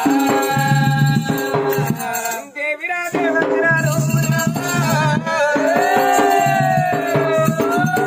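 Oggu Katha folk music: a melody of long held notes, one bending slowly in pitch near the end, over rattling hand percussion and a repeated low drum pulse.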